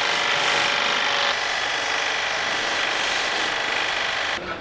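High-pressure washer running, a steady buzzing hiss of pump and water jet, which cuts off near the end.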